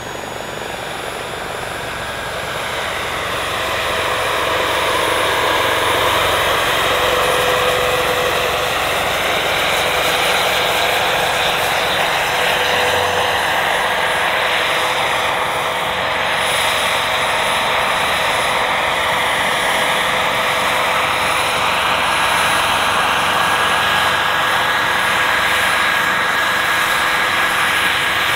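Turbine engine and main rotor of a giant radio-controlled Bell 206 JetRanger model helicopter (3.3 m rotor), running with a steady high turbine whine over the rush of the blades. It grows louder over the first few seconds, then holds steady.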